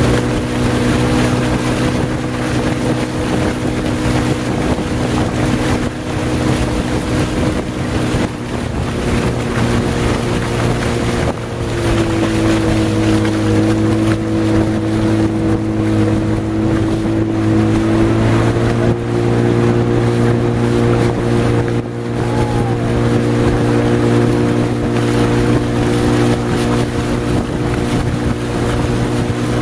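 Motorboat engine running at a steady pitch that dips for several seconds midway and comes back up. Wind buffets the microphone and water rushes throughout.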